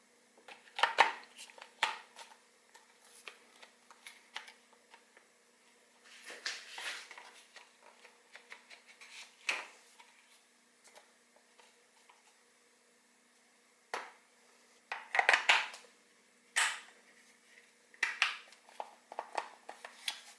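Plastic parts and packaging of a budget electric pressure washer being handled during unboxing: irregular clicks, knocks and rustles, in clusters with pauses between. A faint steady hum sits underneath.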